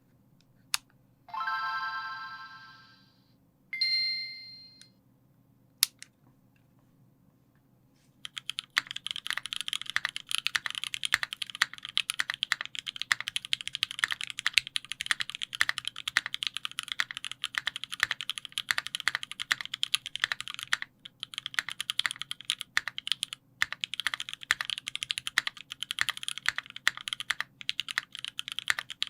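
Typing on a Sangeo 60 custom mechanical keyboard with lubed JWK Snow White linear switches on an aluminium plate and GMK keycaps: a dense, steady run of keystrokes starting about eight seconds in, with a couple of brief pauses. Before the typing, a few single clicks and two short ringing tones.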